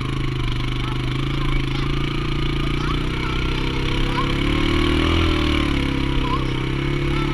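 Small engine of the towing vehicle running steadily as it pulls the tow chair along a dirt trail, rising briefly in pitch in the middle as it speeds up, then easing back. Short high chirps sound now and then above it.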